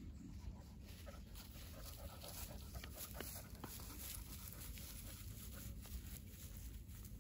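A dog panting, faint.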